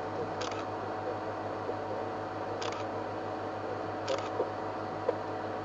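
Camera shutters clicking: three short, separate clicks a second or two apart, over a steady background hiss and hum.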